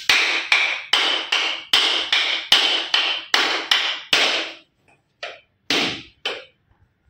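A whole coconut being struck repeatedly with a hard tool to crack it open: sharp, ringing knocks about two or three a second for some four and a half seconds, then three lighter, spaced-out blows.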